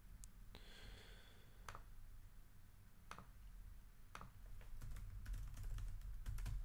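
Faint computer keyboard typing: a few separate clicks at first, then a quick run of key presses over the last two seconds or so.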